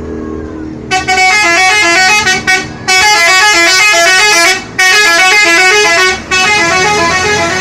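A Damri bus's 'telolet' musical air horn playing a rapid, stepping multi-note tune, loud, starting about a second in and broken by a few short pauses, with the bus engine running underneath.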